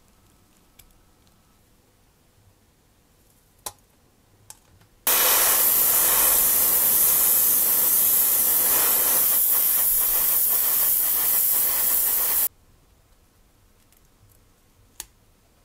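A long, steady hiss of a pressurized spray, starting abruptly and cutting off sharply about seven seconds later. A few light clicks come before and after it.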